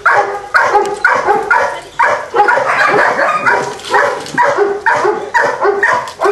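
A Belgian Shepherd dog barking over and over in a steady run of sharp barks, about two a second.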